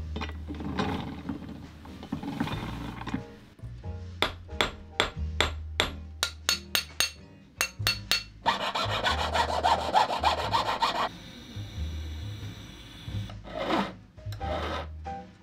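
Jeweller's bench work in a quick sequence: a hand-cranked rolling mill grinding and rubbing at the start, then a fast run of sharp metal taps, then a dense rasping stretch and separate strokes of a hand file on a ring near the end. Soft background music with a low bass line runs underneath.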